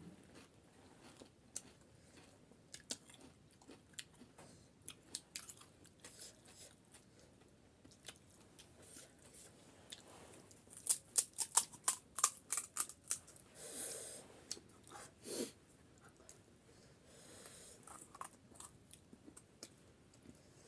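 Mouth sounds of eating pani puri: biting and chewing with scattered crisp crunches, and a quick run of louder, sharp crunches about eleven seconds in.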